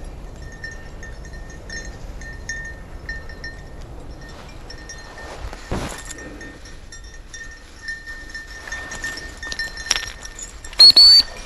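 A hunting dog's bell tinkling in short rings, about every half second, as the dog runs through brush, with footsteps crunching in dry grass and a twig snapping about six seconds in. Near the end comes a brief, loud, shrill tone rising slightly in pitch.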